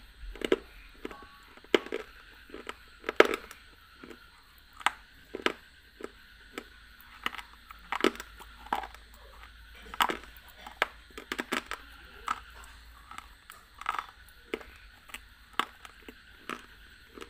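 Close-miked chewing of a hard, brittle food: a run of sharp, irregular crunches, sometimes two or three in quick succession, as the mouthful is bitten and ground down.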